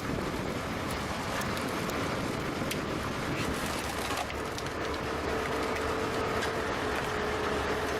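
20-ton vertical hydraulic log splitter running, its angled piston pump and power unit giving a steady mechanical drone with a whine that grows stronger about halfway through, and scattered sharp clicks.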